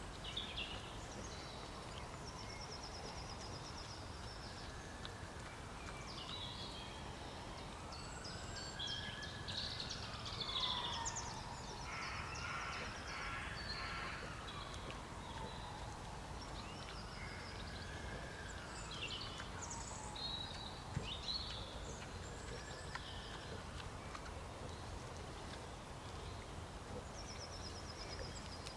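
Songbirds chirping and trilling in short phrases again and again, over a steady low rumble. Between about 2 and 24 seconds in, a faint tone slowly rises and falls every few seconds.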